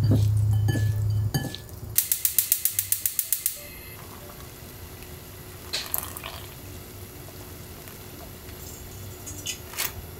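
Gas stove burner igniter clicking rapidly, about eight clicks a second for a second and a half, after a low rumble at the start. A few light metal clinks follow near the end.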